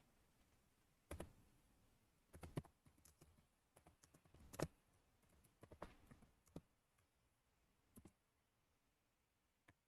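Faint, irregular computer mouse and keyboard clicks, about a dozen spread through the stretch, with a small run of quick keystrokes near the middle.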